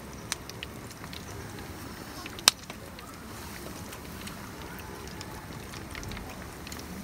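Hot oil sizzling steadily in a mess tin as kushikatsu skewers deep-fry, with scattered small pops and one sharp click about two and a half seconds in.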